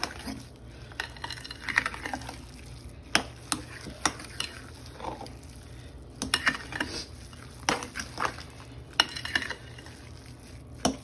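A fork stirring and mixing potato salad in a glass mixing bowl, with irregular clinks and scrapes of the metal against the glass.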